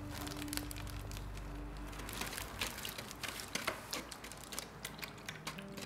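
A metal blade knocking and scraping against the side of a plastic bucket while mixing a liquid paint and mineral mixture, a run of irregular clicks and taps.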